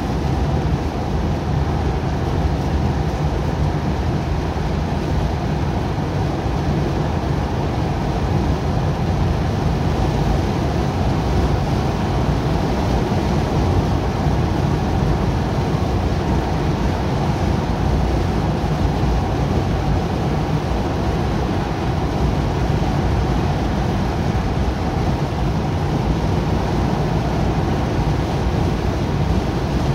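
Steady road and tyre noise with a low engine hum, heard from inside a moving car's cabin.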